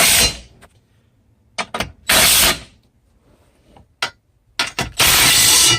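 Hand ratchet wrench driving 10mm bolts back in, clicking in three quick runs with a few loose knocks and clicks in between.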